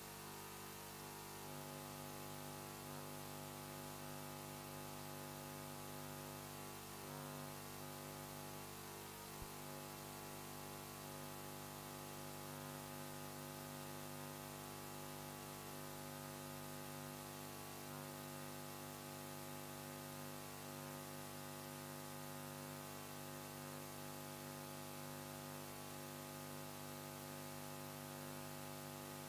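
Low, steady electrical hum and hiss from an idle public-address sound system, with a single faint click about nine seconds in.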